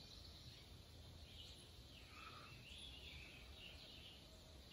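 Near silence: faint outdoor ambience, with a few faint high chirps around the middle.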